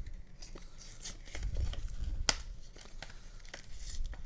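Crinkling and tearing of a foil Yu-Gi-Oh booster pack being opened by hand, with scattered small clicks and one sharp snap about two seconds in. The pack is tough to tear open.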